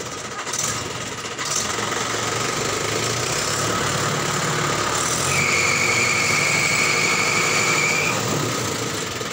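Tractor engine running, with a steady high-pitched squeal lasting about three seconds in the middle.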